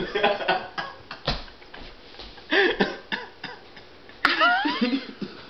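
Short vocal sounds from people close to the microphone, coughs among them, with scattered clicks and knocks and a sharp click followed by a brief high rising squeal about four seconds in.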